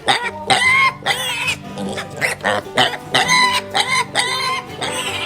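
Piglets squealing in short, wavering calls one after another, over background music.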